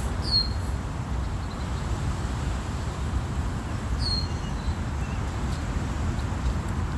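Two short, high bird calls, each sliding quickly downward in pitch, the first right at the start and the second about four seconds later, over a steady low rumble.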